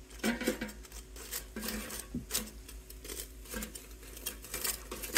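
Kitchen tongs clicking and scraping against the air fryer basket as battered haddock fillets are turned over: light, irregular clicks, with a sharper knock near the end.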